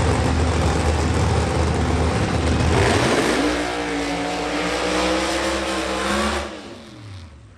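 Nitro funny car engine at full throttle, loud and dense, its pitch rising about halfway through. It drops away sharply near the end.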